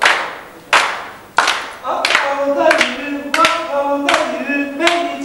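A group of men clapping in unison, a sharp clap about every three-quarters of a second. From about two seconds in, they sing together over the claps.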